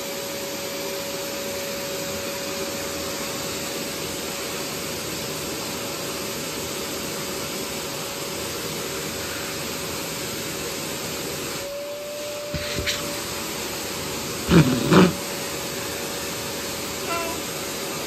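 Vacuum cleaner running steadily, a constant whine over its rushing air; about twelve seconds in the sound dips briefly and its pitch shifts, and two short louder sounds follow a couple of seconds later.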